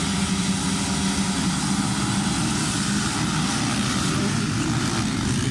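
A full start gate of motocross bikes, their engines held revving on the line, then the whole field accelerating away together about two seconds in: a dense, loud mass of engines.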